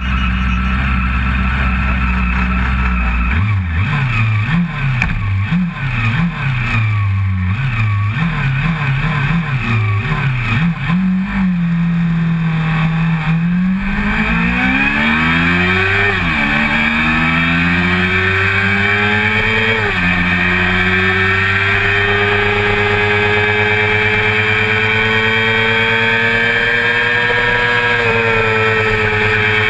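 1988 Honda CBR400RR's 400 cc inline-four engine heard on board. It idles, is revved in quick blips, then is held at high revs before the start. It then accelerates away, rising in pitch through two upshifts, and settles at steady high revs with wind rushing past.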